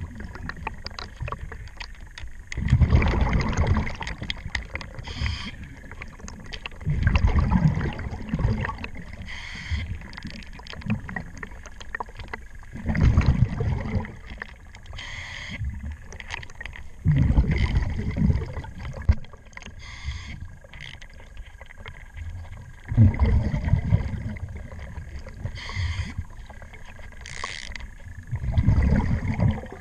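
Scuba diver's regulator breathing underwater: a rush of exhaled bubbles about every five seconds. Faint clicking and a thin steady high tone sound between the breaths.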